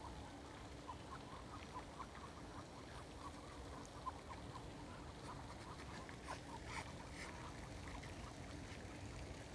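Muscovy ducks calling faintly: a quick run of short, soft notes, then a few sharper calls about two-thirds of the way through.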